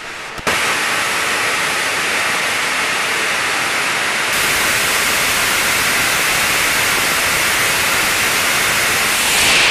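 Rocket engine firing on a static test stand: a loud, steady rushing noise that starts abruptly about half a second in, swells slightly near the end and falls away as the burn shuts down.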